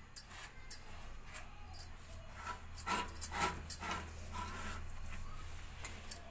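A hand-held grinding stone rubbing and knocking on a flat stone slab (sil-batta), a series of short, irregular scrapes and taps as ingredients are ground.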